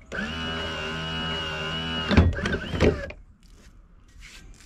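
TRAC electric anchor winch motor whining steadily for about two seconds, then stopping, followed by several knocks as the anchor comes up against the bow mount. Faint handling sounds follow.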